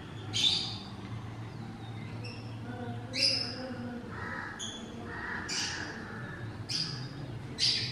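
Bird chirps in the background, about seven short, sharp calls a second or so apart, over a low steady hum.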